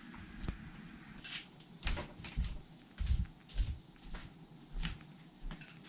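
Scattered light knocks and clicks, about a dozen over several seconds, with a few soft low thumps between them: things being handled and set down.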